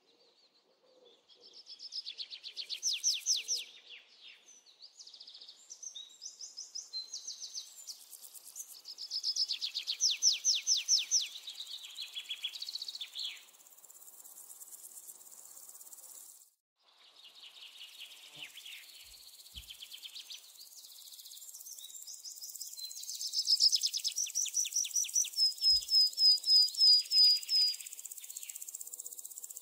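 Forest soundscape of birds singing fast trills and runs of quick repeated high notes over a faint steady insect hum. It breaks off for a moment about halfway through. Near the end comes a string of clear, evenly spaced notes, about three a second.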